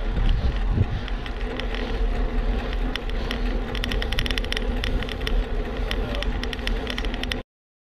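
Riding noise from a pedalled bicycle: wind rumbling on the microphone and tyres rolling on rough asphalt, with many short ticks throughout. It cuts off abruptly near the end.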